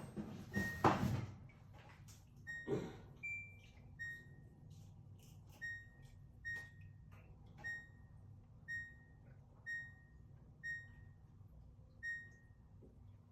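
LG washing machine control panel beeping as its buttons are pressed: a couple of clunks, then about ten short beeps of the same pitch, one roughly every second, each with a soft click of the press.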